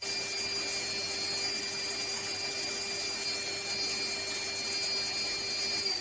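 A workshop machine's motor running steadily with a high whine. It cuts in suddenly, then is switched off at the very end, its whine starting to fall as it winds down.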